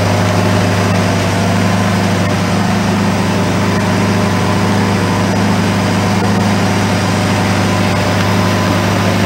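Steady low mechanical hum, like a motor running, holding one pitch throughout.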